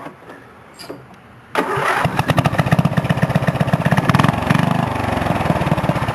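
Riding lawn mower's 7.5-horsepower engine starts up suddenly about a second and a half in, then runs at a very low idle, its separate firing beats clearly heard. The idle has been set down low.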